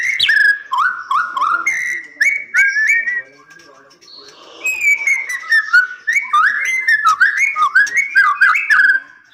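White-rumped shama singing: a varied run of whistled notes sliding up and down, mixed with sharp clicking notes, with a pause of about a second near the middle before the song starts again.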